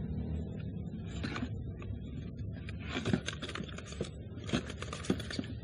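Packaging being handled and opened: crinkles, clicks and scrapes of plastic and cardboard around a still-sealed soldering iron, getting busier about three seconds in.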